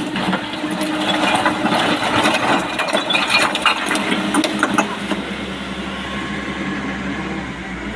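Heavy diesel machinery running steadily, with a dense clatter of rattles and knocks through about the first five seconds that then eases, leaving the engine running more evenly.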